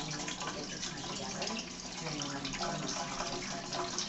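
Aquarium water splashing steadily, the running flow of the tank's filter, with a faint television voice underneath.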